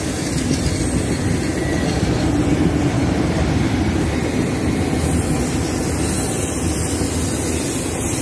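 A freight train's enclosed autorack cars rolling past close by, with a steady noise of wheels on the rails.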